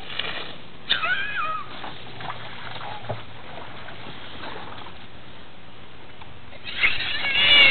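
Water thrown from a bucket splashing down onto the grass, with a young child squealing high-pitched about a second in and again, louder, near the end.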